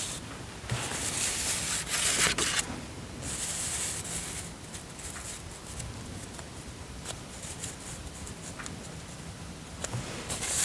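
Paper rustling and rubbing from handling a planner and sticker sheets: two longer rustling stretches in the first half, then softer rubbing with a few light ticks.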